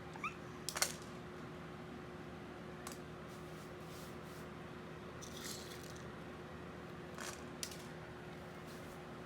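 Faint scattered clicks and a soft scuff over a steady low room hum, with a brief high rising chirp at the very start.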